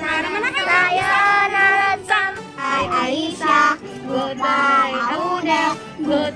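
Children singing a goodbye song together, with long held notes.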